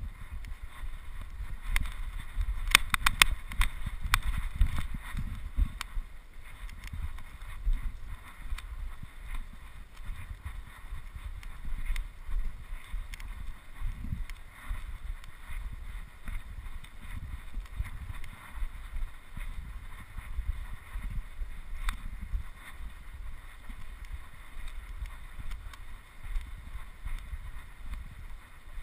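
Wind buffeting the microphone: a low, gusting rumble that rises and falls, with a brief cluster of sharp clicks about three seconds in.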